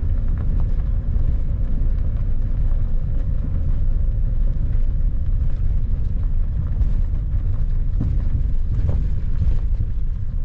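Vehicle rolling slowly along a gravel road: a steady low rumble of tyres on gravel, with a few light stone ticks near the end.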